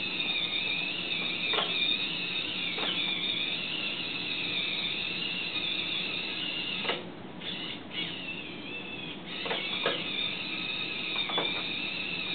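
Small electric drive motors of a wheeled robot car whining, high-pitched and wavering, with several short sharp drops in pitch. The whine cuts out for about two seconds near the middle, then comes back.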